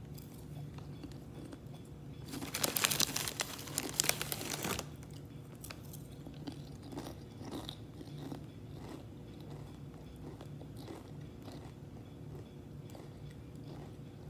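Doritos tortilla chips being bitten and chewed: a loud stretch of dense crunching about two seconds in, then fainter, scattered chewing crunches.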